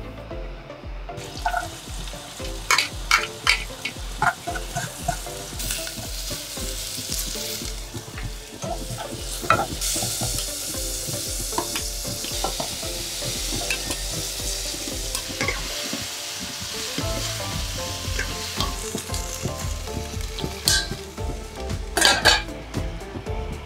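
Curry paste frying and sizzling in a non-stick pot while a spoon stirs and scrapes it, with frequent sharp clicks of metal against the pot. A run of louder clinks comes near the end.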